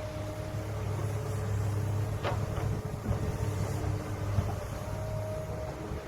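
Heavy diesel earthmoving machine, an excavator or bulldozer, running steadily under work. A few short sharp knocks come about two seconds in and again past the middle.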